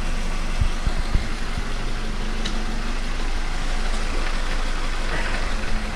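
Mitsubishi Lancer X engine idling steadily, with a few short low thuds about a second in. The gearbox knock the owner is chasing at idle in neutral is barely present.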